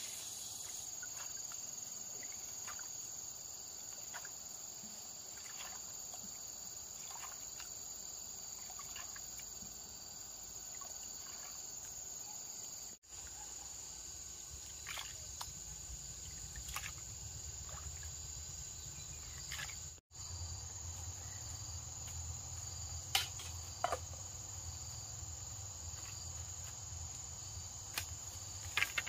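Steady high-pitched insect drone, with scattered faint clicks and small splashes of hands working in shallow water.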